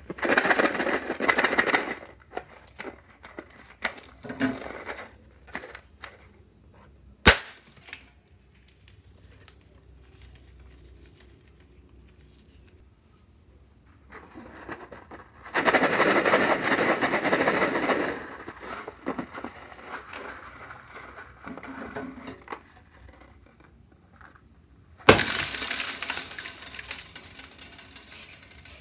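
Small plastic pearl beads pouring out of balloon stress balls and clattering into a glass bowl of slime, in three bursts of rattling. A single sharp click comes about seven seconds in.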